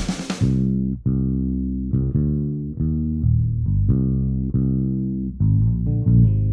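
Background music: a bass guitar line with guitar, notes changing about once or twice a second.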